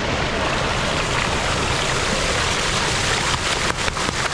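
Steady rush of water running from an opened fire hydrant, with a few light clicks near the end.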